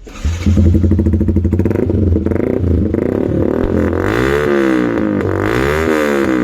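Yamaha R15 V2's single-cylinder engine running through an aftermarket exhaust, revved twice in the second half. The exhaust note is a bit bassy.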